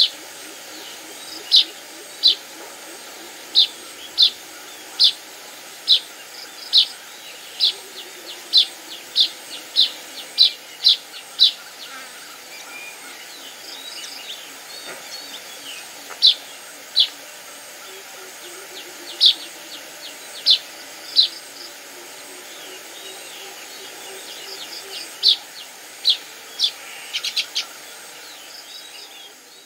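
Weaver birds calling: a string of short, sharp, high chirps, about one a second, in three runs with pauses between, over faint background bird chatter.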